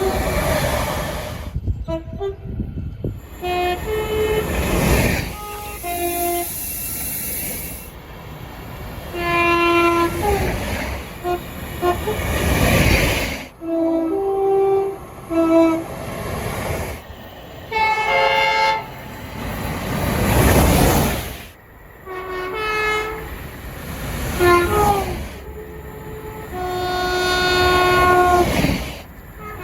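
Train air horns from several different trains, sounding short, repeated blasts of multi-note chords, with the noise of trains running by between them. The sound changes abruptly every few seconds as one horn gives way to another.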